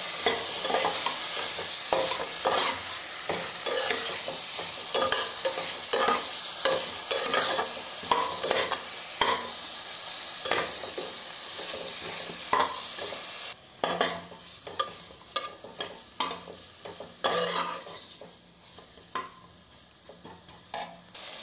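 Chicken pieces and onions frying in butter in a pressure cooker pot, sizzling steadily while a metal spoon scrapes and knocks against the pot as they are stirred. About two-thirds of the way through the sizzle drops much quieter, leaving separate scrapes of the spoon.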